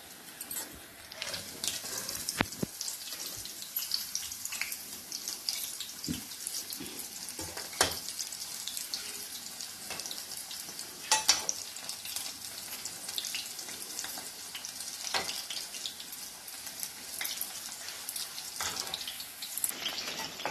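Masala-coated chicken pieces deep-frying in hot oil in a metal kadai: a steady bubbling sizzle with crackles. A few sharp clinks, about four, from the perforated metal skimmer as the pieces are turned.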